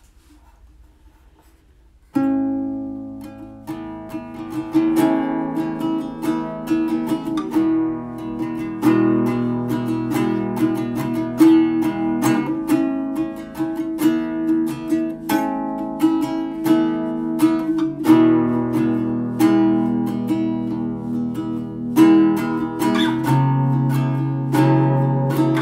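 Music: a guitar plays picked notes and chords in a steady rhythm, coming in sharply about two seconds in after a quiet start.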